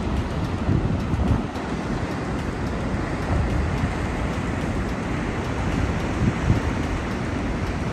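Strong wind buffeting the microphone in irregular low gusts over the steady rush of large ocean surf.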